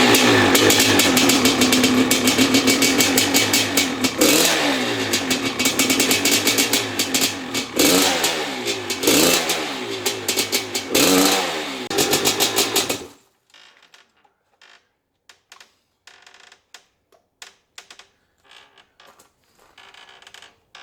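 Maico 660 two-stroke single-cylinder dirt bike engine running, freshly fired up after repair work, revved in a string of throttle blips. It shuts off abruptly about 13 seconds in, leaving only faint small clicks and taps.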